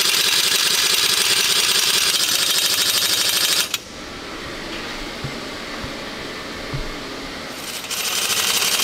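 Pneumatic impact wrench hammering on a home-made socket tool fitted over a Panzer I road wheel's hub nut. It runs for about three and a half seconds, stops, and starts again near the end. The nut stays stuck, locked together and apparently damaged by earlier chisel or punch blows.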